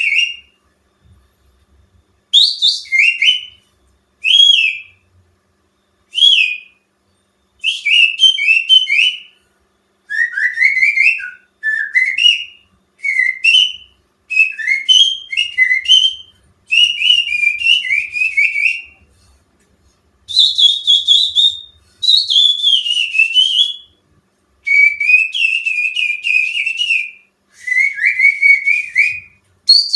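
Finger whistling imitating the song of a greater green leafbird (cucak ijo), used as a lure to set caged birds singing. It comes as a series of short phrases of quick, warbling high notes with brief silences between them, and the phrases grow longer and fuller later on.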